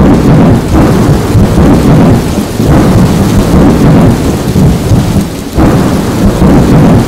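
Thunderstorm: loud rolling thunder over heavy rain, the rumble swelling and easing several times.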